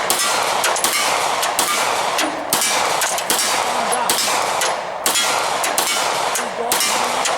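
Gunfire at a shooting range: a fast run of sharp shots with a steady wash of noise between them.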